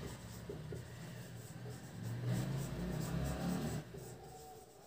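Faint sound of a marker pen writing on a whiteboard, with a low hum that comes in about two seconds in and stops a little before four seconds.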